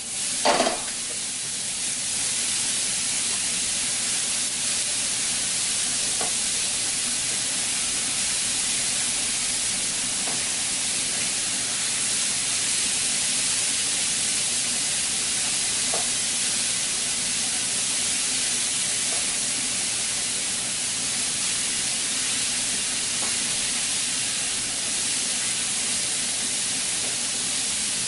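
Cauliflower rice and sautéed vegetables sizzling steadily in oil in a pan over moderate heat, with a brief stir right at the start and a few faint clicks of the utensil.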